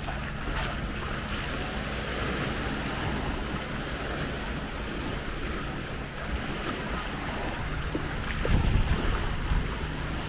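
Sea waves washing onto the beach, with wind buffeting the microphone; a stronger gust rumbles on the microphone about eight and a half seconds in. A faint steady low hum runs underneath.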